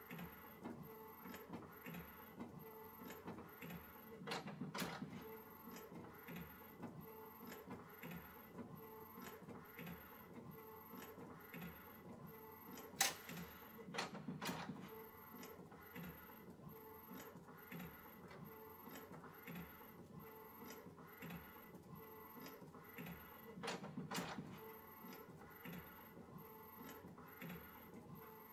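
Epson EcoTank ET-8550 inkjet photo printer printing: a quiet, even run of soft ticks as it works. Three times, about ten seconds apart, there is a louder stretch of clicking; the loudest is a sharp click in the middle.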